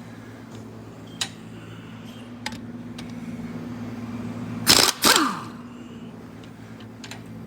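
Air impact wrench fired in two short bursts about five seconds in to take off the wheel's lug nuts, its pitch falling as it winds down after each burst. Scattered sharp metal clicks come before it, and a steady low hum runs underneath.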